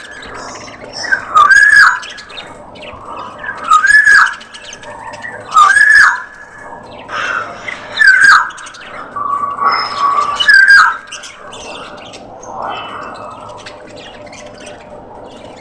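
Budgerigars squawking: a loud, arched call repeated about every two seconds over a background of softer chattering, with the loud calls stopping about eleven seconds in.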